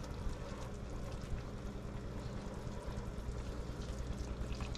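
Chicken and vegetables in a saucy skillet simmering with a steady bubbling hiss, with soft stirring in the pan.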